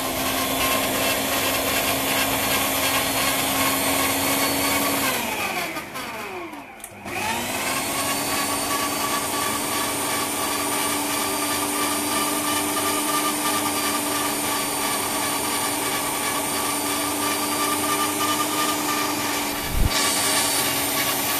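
Food processor motor chopping a falafel mixture of ground chickpeas, running steadily. It is switched off about five seconds in and winds down, then starts again a couple of seconds later and runs back up to speed, with a single knock near the end.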